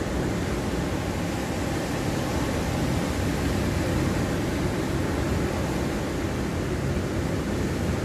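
Ocean surf breaking and washing onto a sandy beach, a steady rushing noise heaviest in the low rumble, with no single wave crash standing out.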